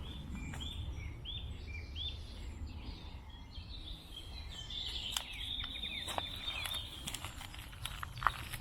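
Wild birds singing: three similar short arched whistled notes in the first couple of seconds, then a longer rapid trill in the middle, over a steady low wind rumble. A few sharp clicks near the end.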